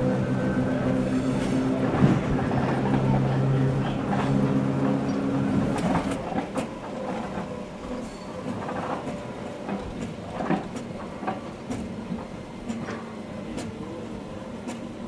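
Electric train running, heard from the driver's cab: a steady low motor hum until about six seconds in, then quieter running with the wheels clicking irregularly over the rail joints.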